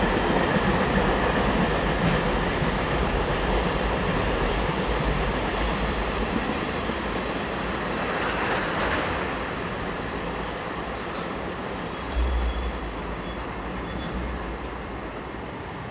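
Freight train of container flat wagons rolling past on the rails, slowly fading as the last wagons draw away. A brief low thump about twelve seconds in.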